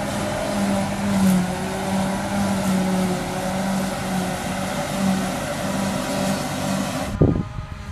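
Claas Jaguar 850 self-propelled forage harvester running under load as its pickup feeds heavy grass silage into the chopper, a steady loud machine noise with a low hum that swells and fades. Near the end it cuts off abruptly and wind buffets the microphone.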